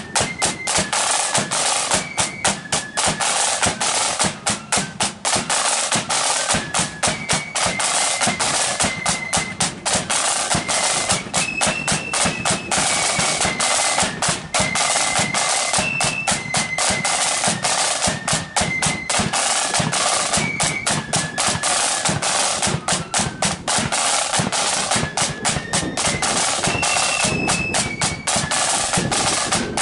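Marching flute band playing a march: rows of side drums beating in rapid strokes and rolls, with a bass drum, under a high flute melody.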